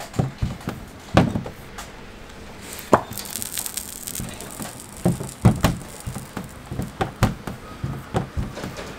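Rolling pin knocking and clattering against a stainless steel counter as flatbread dough is rolled out: a quick, uneven run of sharp clacks, with a brief hiss about three seconds in.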